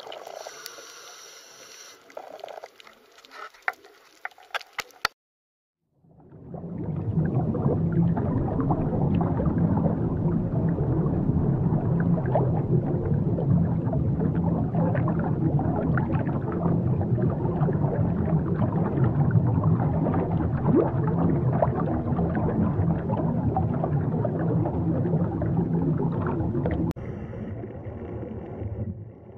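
Underwater ambience: soft water sound with a few sharp clicks, then after a brief dead silence a loud, dense crackling and bubbling rumble for about twenty seconds. Near the end it changes to a quieter, steady underwater hiss.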